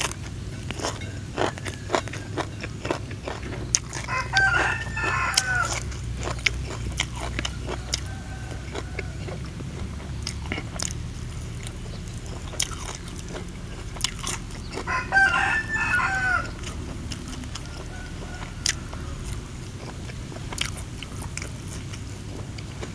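A person chewing and crunching a mouthful of food, with many short wet mouth clicks. A rooster crows twice in the background, about four seconds in and again about fifteen seconds in.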